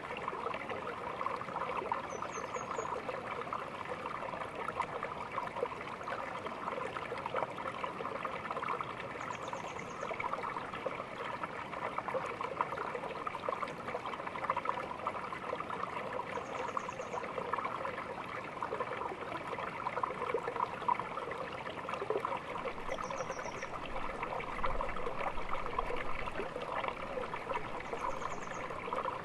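Small stream babbling and trickling steadily. Brief high chirps come about five times, roughly every six seconds.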